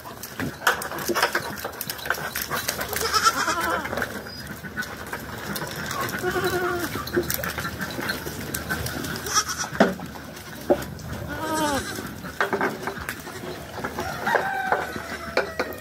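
Goats bleating, several short separate calls spread through the pen, mixed with scattered knocks and scuffles.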